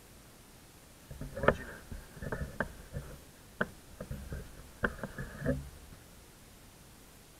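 A series of sharp knocks and thumps, about ten over four seconds, the loudest about a second and a half in and again near five seconds.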